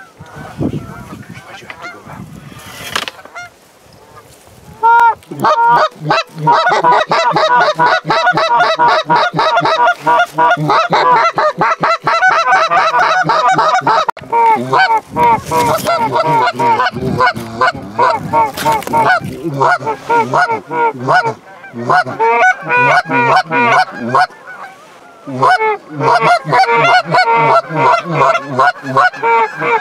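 Canada goose honks and rapid clucks blown hard on hand-held goose calls, very loud and nearly non-stop, starting about five seconds in, with a brief lull near the end. It is calling to bring a pair of geese in close.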